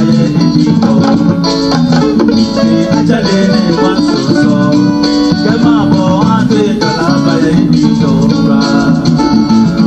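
Background music with plucked guitar, steady and loud throughout.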